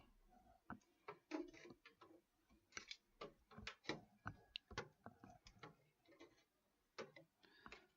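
Light, irregular clicks and taps of computer hardware being handled while a cooling fan is fitted inside a PC case.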